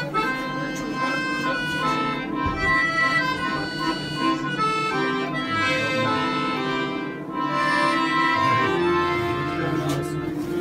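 Accordion playing a tune, a changing melody over long held bass notes.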